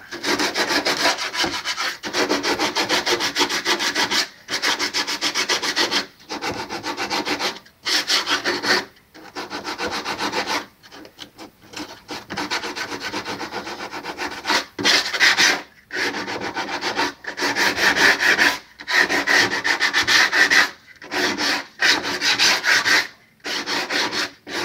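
Hand sanding with a small piece of sandpaper: quick back-and-forth strokes along the edge of a freshly glued wood patch strip, taking off the excess at its top edge. The strokes come in runs of one to three seconds with short pauses between them.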